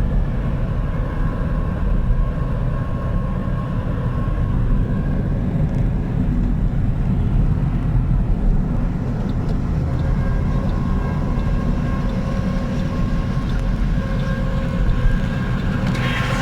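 A train running past close by: a steady, loud low rumble with a faint steady whine over it.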